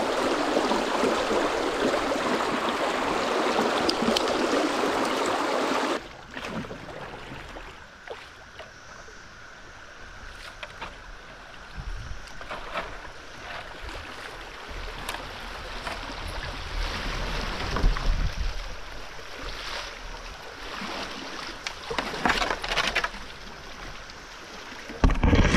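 Fast river water rushing loudly past a fishing kayak, cut off abruptly about six seconds in. What follows is a quieter drift with low rumble and scattered knocks and splashes of the kayak and paddle.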